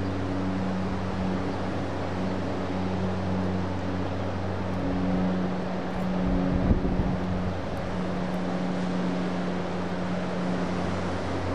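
A steady low engine hum on one pitch, over a steady wash of wind noise, with a brief bump about seven seconds in.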